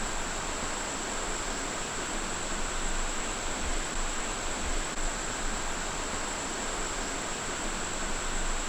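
Steady rushing noise of flowing water, with a thin, steady high tone above it.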